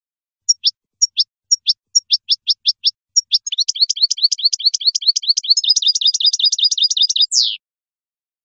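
European goldfinch singing: a string of separate falling notes, slow at first and then quicker, breaks about three seconds in into a fast, continuous twittering trill, which ends near the end with one buzzy downward note.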